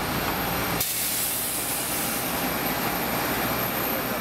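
Steady hissing engine noise of aircraft on an airport apron, turning suddenly louder and sharper about a second in.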